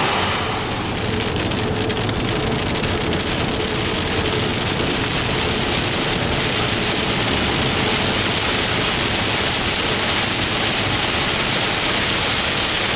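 Heavy rain beating on a moving car's roof and windshield, with tyre hiss from the wet road: a dense, steady hiss.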